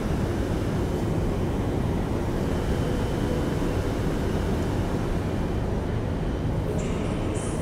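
Passenger train rumbling steadily at a station. Near the end a run of short hisses begins, about two a second.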